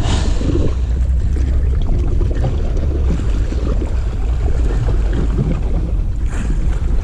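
Wind buffeting the camera's microphone in a steady low rumble, with the sea washing on the rocks beneath.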